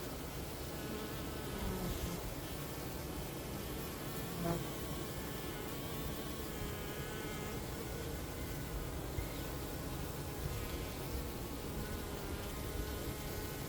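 Honeybees buzzing steadily en masse, with the higher hum of single bees passing close and fading again every few seconds.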